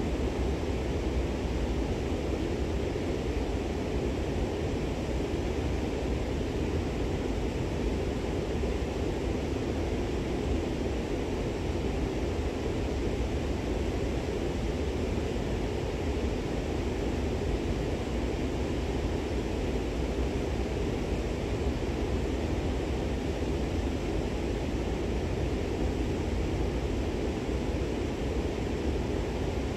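Camera drone's propellers whirring steadily overhead, an even noise that does not change.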